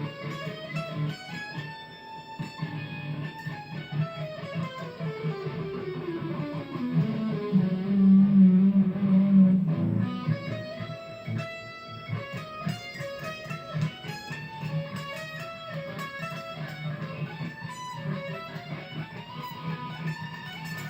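A guitar being played, single notes sliding down the neck and back up again, with a louder stretch of low sustained notes just before the middle.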